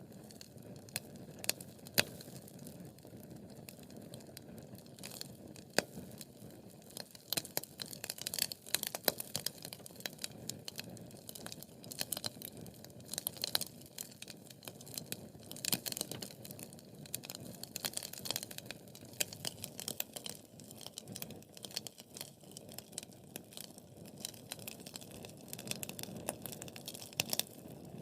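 Wood fire burning in a fireplace: a steady low rush of flames under many sharp snaps and pops of crackling wood, coming thickest through the middle stretch.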